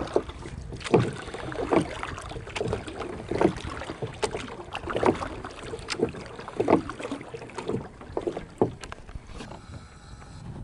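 A small rowing boat being rowed: a regular stroke of oars in the water, just under once a second, over water lapping and wind on the microphone. The strokes thin out near the end.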